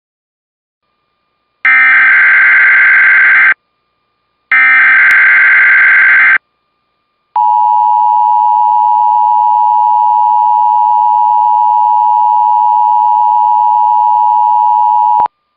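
Emergency Alert System signals: two harsh, buzzy bursts of SAME header data, each about two seconds long, then a single steady alert tone held for about eight seconds that cuts off abruptly. This sequence announces a tornado watch alert message.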